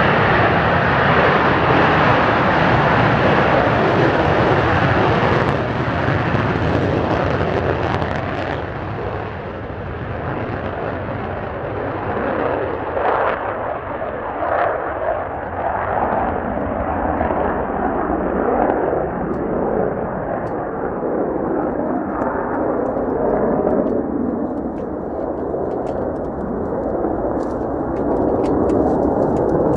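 Mitsubishi F-2 fighter's single F110 turbofan at full afterburner on takeoff: a loud jet roar as it rolls down the runway and lifts off, the sound growing duller and more rumbling as the jet climbs away.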